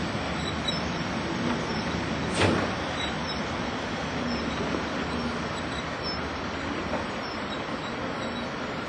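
Articulated electric locomotive rolling slowly along yard track, a steady running noise with a faint hum, and a brief loud burst about two and a half seconds in.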